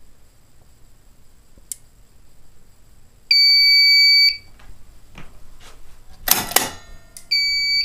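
Fire alarm panel's sounder gives one high beep lasting about a second, then a loud clack from the manual pull station being pulled, and the sounder starts beeping in half-second pulses near the end. The pull station's zone has been set as a supervisory, so the panel reports a supervisory instead of ringing the bell.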